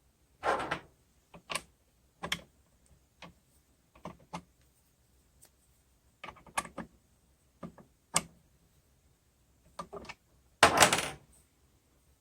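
Irregular clicks and knocks of small hard objects being handled and set down, a dozen or so spread over the stretch, with a louder half-second clatter near the end.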